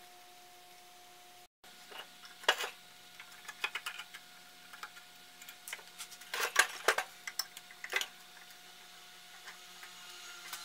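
Metal parts of a vintage electric lawn edger clinking and knocking as its sheet-metal motor housing is handled on a wooden workbench, starting about two seconds in, with the sharpest knocks around two and a half, six and a half and eight seconds in. A faint steady hum runs underneath.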